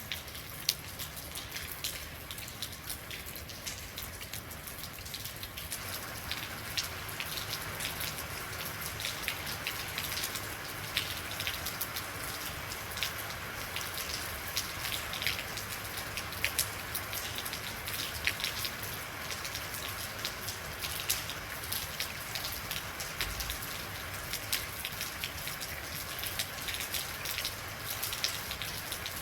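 Real rain falling steadily, with many distinct drop hits ticking through the steady hiss. The rain grows a little heavier about six seconds in.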